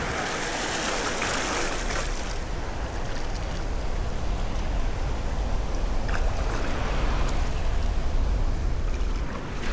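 Steady wash of Gulf surf on the beach, with wind rumbling low on the microphone.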